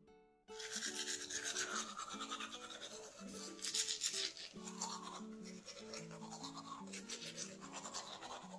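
Manual toothbrush scrubbing teeth close to the microphone, a dense scratchy rasping that starts about half a second in, over background acoustic guitar music.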